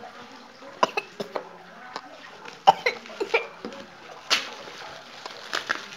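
Bubble wrap and plastic wrapping rustling and crackling as it is handled and pulled off a small boxed camcorder, with irregular sharp crackles, the loudest a little under halfway and about two-thirds of the way in.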